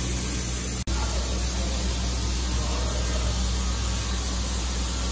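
Steady low machine hum under an even hiss, which drops out for an instant about a second in.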